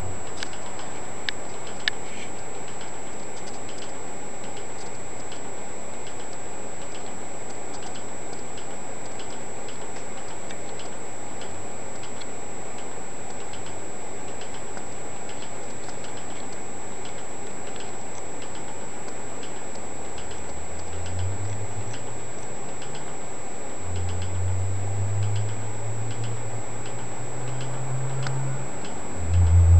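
Steady, regular ticking, clock-like, over a constant room hiss with a faint high-pitched whine; low rumbling comes in about two-thirds of the way through.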